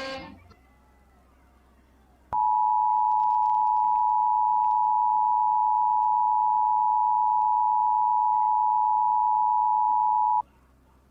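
Emergency Alert System two-tone attention signal: two steady tones sounding together, starting abruptly about two seconds in after a brief hush, held for about eight seconds, then cutting off suddenly. It is the alert that heralds an emergency broadcast message, here a National Weather Service tornado watch.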